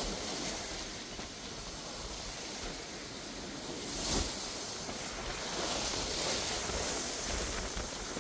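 Sea water rushing and breaking along the hull of a sailing yacht under way, with wind on the microphone. One wave surges louder about four seconds in.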